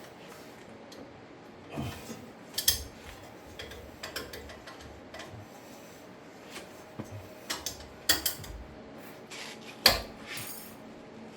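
Scattered metallic clinks and knocks of a 17 mm socket and 1/2-inch ratchet working on a brake caliper bracket bolt, breaking it loose. The loudest is a sharp knock near the end.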